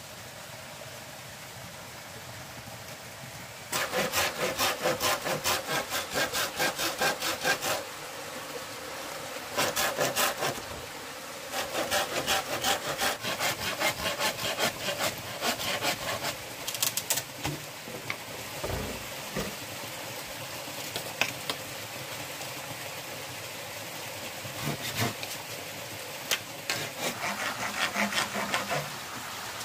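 Bamboo being sawn by hand, in several runs of quick, even back-and-forth strokes, about three or four a second, with short pauses between runs.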